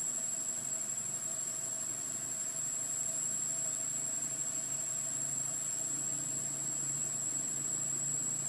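Steady, high-pitched insect drone with no break, over a fainter low, steady hum.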